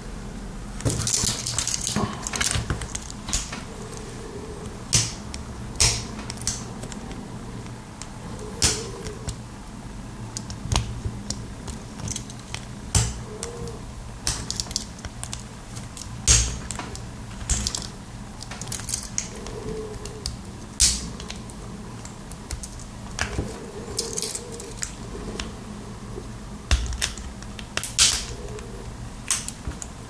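Sharp clicks and taps of small plastic parts and tools as an inline RJ45 Ethernet coupler's plastic housing is taken apart. They come irregularly, about one a second, over a low steady hum.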